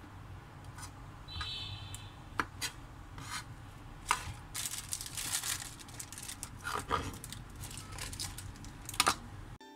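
Kitchen knife scraping and tapping on a plastic cutting board while the root ends of white beech mushrooms are cut off and gathered up by hand: a string of scattered taps and scrapes, with a longer rustling scrape around the middle and a sharp tap near the end.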